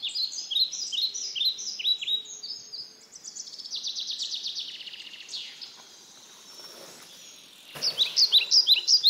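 Small songbirds singing: rows of short, high, falling chirps and a trill. About eight seconds in, a brief rush of noise as a bicycle rides past on the dirt trail, with the chirping louder after it.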